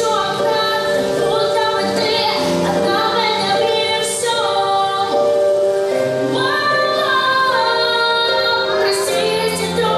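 Song with a female voice singing slow, held notes over instrumental accompaniment.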